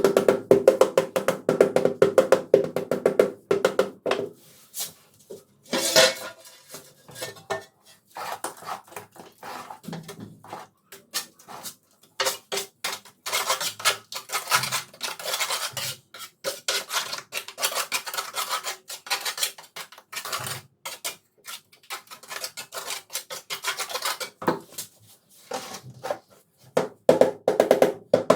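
Tile-laying work: a hand tool such as a trowel scraping, clicking and clinking against ceramic tiles, in a long run of quick irregular taps and scrapes.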